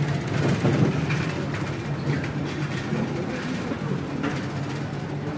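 A large vehicle running with a steady low hum, a little louder about a second in.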